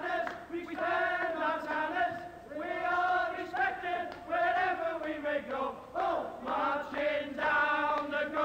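Group of men singing an Everton football song together, in sung phrases of a second or two with short breaks between them.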